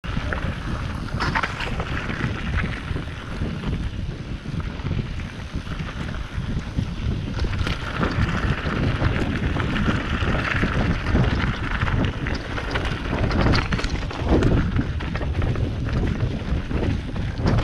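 Wind rushing over the microphone as a mountain bike rolls along a gravel singletrack, with a steady low rumble from the tyres on the rough trail and scattered rattles and knocks from the bike.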